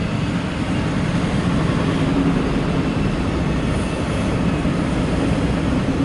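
Freight train's autorack cars rolling past at speed: a steady rumble of wheels on rail.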